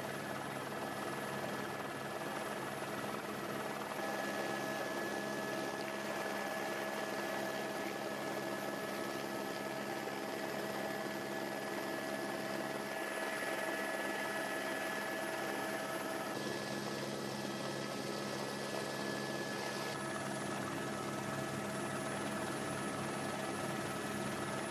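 Steady engine drone with several constant tones held throughout; the hiss over it shifts abruptly a few times.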